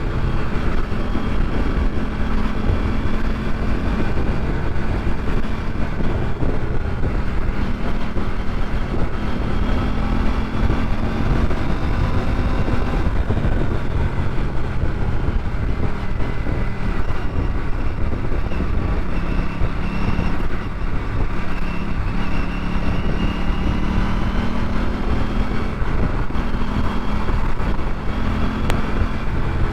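Aprilia RS 457's parallel-twin engine running under way, its pitch rising and falling gently a few times as the throttle eases on and off, over a dense low rumble.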